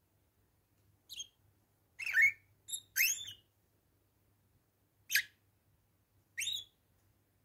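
Bourke's parakeets calling: about six short, rising whistled chirps, bunched together two to three seconds in and then spaced out singly.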